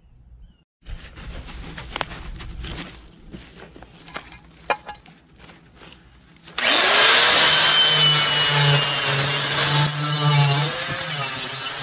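Light knocks and handling clicks, then about two-thirds of the way in an electric drill with a wire brush spins up and scrubs rust off a cast iron Dutch oven, a loud steady grinding that wavers as the brush is pressed against the iron.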